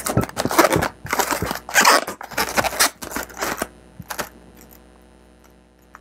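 Latex twisting balloons (a red and a white 260) rubbing and squeaking against each other as they are handled and twisted into place: a run of quick scratchy strokes for the first three and a half seconds, then much quieter with an odd small click.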